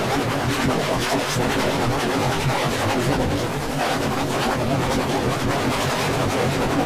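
A commercial's soundtrack garbled by audio effects into a steady, dense, harsh noise with no words that can be made out.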